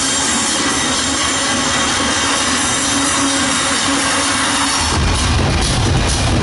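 Electronic dance music in a breakdown: the bass drops out, leaving a noisy hiss-like wash and a held tone. The bass comes back in about five seconds in.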